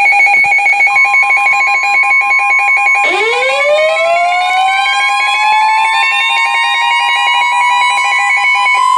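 Emergency alert tones played together. A rapidly pulsing two-pitch electronic alarm beep runs throughout. About a second in it is joined by a steady high tone, and about three seconds in by a siren that winds up in pitch and then holds.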